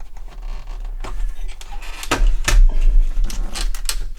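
A series of short clicks and knocks as parts of a Sinclair QL computer are handled and worked loose during disassembly, the loudest a quick pair about halfway through.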